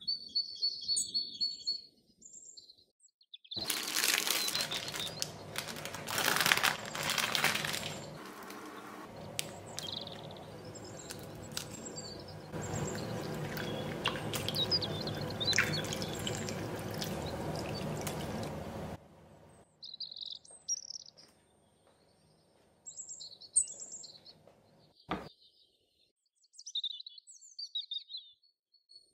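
Water pouring steadily into a glass bowl onto a block of tamarind pulp for about fifteen seconds, loudest at the start. Birds chirp before and after the pour.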